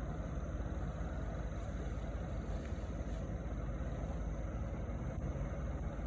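Vittorazi Moster 185 single-cylinder two-stroke paramotor engine running steadily.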